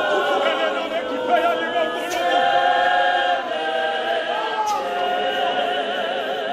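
A large congregation singing a hymn a cappella, many voices holding long wavering notes together, with a couple of sharp knocks in the midst of it.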